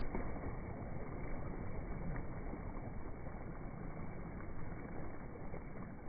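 Small waves lapping and washing over a pebble shore: a soft, steady, muffled wash with a few faint ticks.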